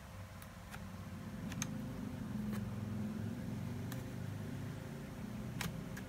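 A handful of light, sharp clicks from a screwdriver tip working the plastic battery release latch on the underside of an Acer V5-431 laptop, the last one near the end the loudest, over a low rumble that swells about a second and a half in.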